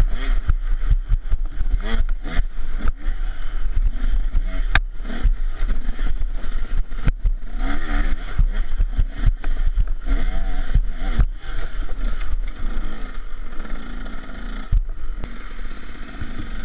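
KTM 150 SX two-stroke dirt bike engine revving up and down as the bike is ridden fast along a rough trail, heard from an on-board camera with wind and bumps battering the microphone. The engine is a little quieter near the end.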